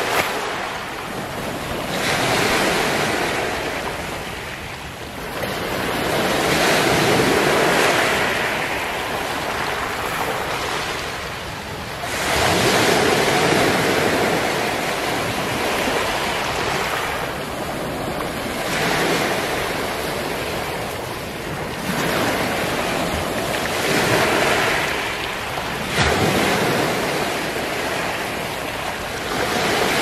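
Small sea waves breaking and washing up a beach of smooth round black pebbles, the wash and backwash rolling and clattering the stones. A fresh surge swells up every five or six seconds.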